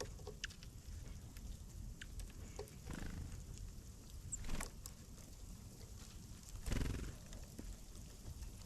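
Outdoor ambience of wild birds in snow: a steady low rumble of wind on the microphone, scattered small clicks, one brief high bird chirp midway, and two louder rustling noises about halfway through and near seven seconds in.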